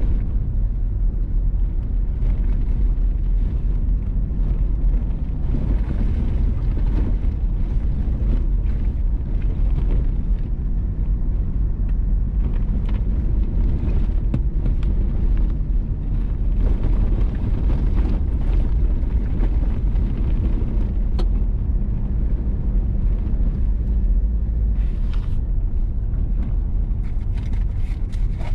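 Vehicle driving on a gravel road: a steady low rumble of tyres and engine, with a few faint ticks.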